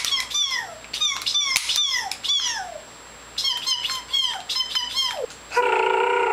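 A cat meowing repeatedly: a quick run of short mews that fall in pitch, then one longer, steadier meow near the end.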